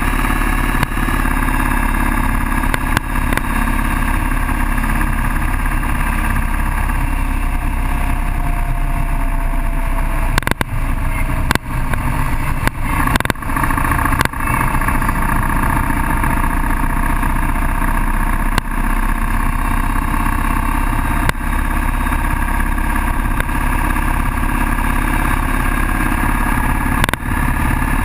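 Cruiser motorcycle's engine running steadily at road speed, mixed with wind rushing over the handlebar-mounted camera's microphone.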